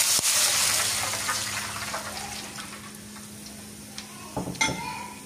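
Coconut water poured from a bowl into a pot of hot oil and fried garlic, hissing and sizzling loudly at first, then dying down over a few seconds to a faint simmer. A few light knocks near the end.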